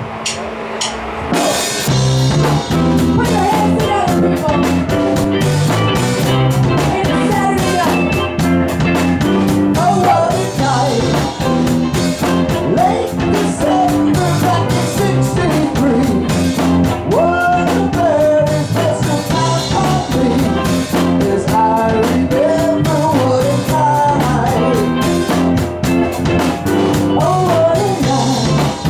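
Live rock band playing amplified through a PA: drum kit, electric bass and guitar, with a female lead vocalist singing. The full band comes in about a second and a half in.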